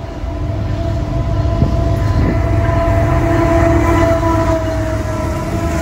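Union Pacific diesel-electric freight locomotives approaching and passing close, engine rumble and wheel noise growing louder, with a steady high tone held over it.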